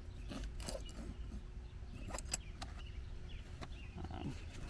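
Hand tools and small parts being handled in a locksmith's tool bag: scattered light clicks and knocks over a low steady rumble.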